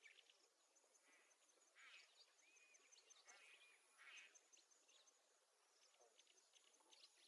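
Very faint birdsong: scattered short chirps and whistles, a few of them rising and falling, over a low hiss.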